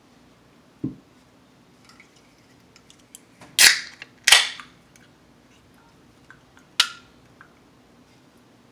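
Aluminium root beer can being opened by its pull tab: two loud sharp cracks with a brief hiss, less than a second apart, then a lighter click a little before the end. A dull knock comes about a second in.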